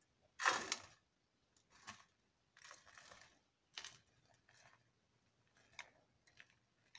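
Damp cookie-crumb mixture tipped from a glass bowl into a round metal cake pan and pushed out with a metal spoon: a short clink about half a second in, then soft rustles of falling crumbs and light scrapes and small clicks of the spoon.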